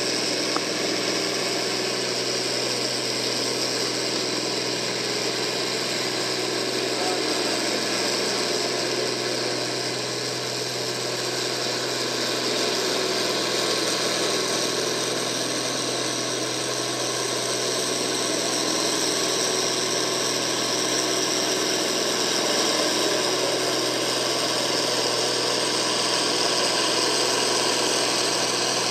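Farm tractor's diesel engine running steadily under heavy load as it pulls a weight-transfer sled at low speed, growing slightly louder towards the end as the sled bogs it down.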